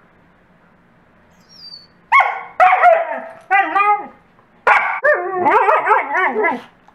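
Two dogs, a husky and a shepherd-type wolfdog, in playful 'talk': after a couple of quiet seconds they trade short yips and wavering whines and howl-like calls that slide up and down in pitch, in a run of bursts that stops just before the end.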